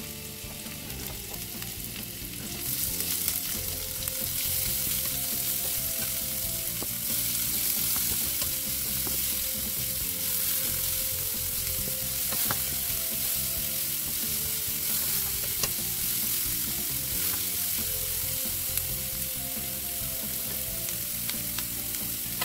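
Chopped onion frying in hot oil in a pan, sizzling steadily, with occasional stirring and the click of a spatula; the sizzle gets louder about three seconds in.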